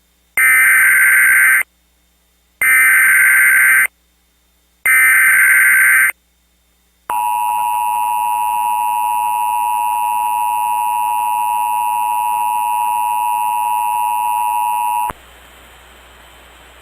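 Emergency Alert System tones for a tornado warning: three short bursts of the SAME digital header, a warbling data screech with silent gaps between them, then the two-tone EAS attention signal held steadily for about eight seconds. The attention signal stops abruptly, leaving a low hiss.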